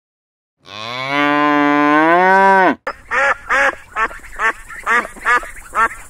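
A cow moos once, a long call that rises and then falls in pitch. After an abrupt cut, mallard ducks quack in a quick series, about three quacks a second.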